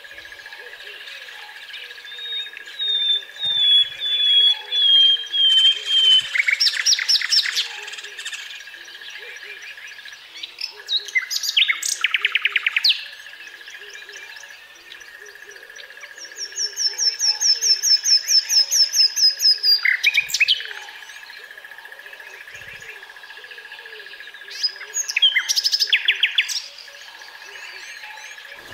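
Common nightingale singing in separate loud phrases a few seconds apart. The phrases include a falling series of clear whistles, fast trills, and a long run of rapid repeated notes about halfway through.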